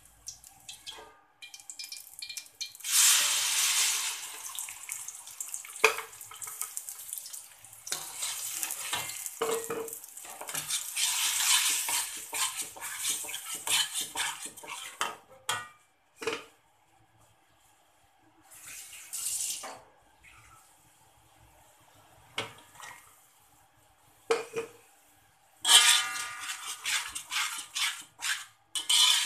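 Blended chilli, ginger, turmeric and garlic paste frying in hot oil in a metal wok, with a loud spell of sizzling about three seconds in. A metal spatula stirs and scrapes, clinking against the wok, with a run of clattering strokes near the end.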